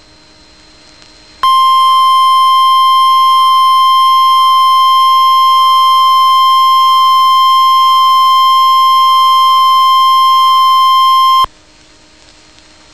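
Emergency Alert System attention tone, the single steady 1050 Hz warning alarm tone of NOAA Weather Radio, held for about ten seconds. It starts about a second and a half in and cuts off sharply, signalling that a spoken severe thunderstorm warning follows.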